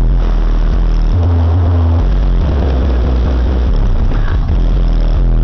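Very loud deep bass from two Pioneer Premier TS-W3002SPL 12-inch subwoofers, driven by Pioneer PRS-D1200SPL amplifiers. They play two long bass notes, a higher one about a second in and then a lower one held for over two seconds, under a harsh buzzing distortion.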